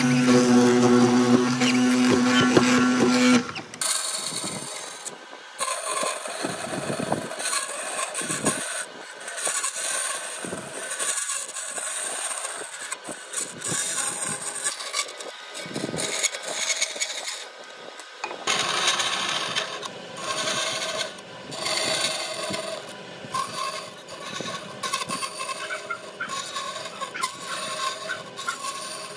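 Woodworking tools at work: a machine hums steadily for the first few seconds and cuts off suddenly, then scraping and cutting noises of tools on wood come and go in uneven strokes, turning to a denser, steadier grinding noise about two-thirds of the way through.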